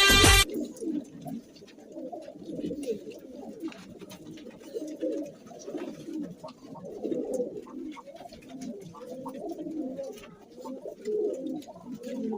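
Several pigeons cooing, their low coos overlapping continuously, with faint scattered ticks among them.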